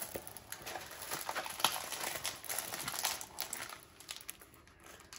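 Diamond painting canvas being unrolled and flattened by hand, its plastic cover sheet crinkling with irregular crackles that thin out about four seconds in.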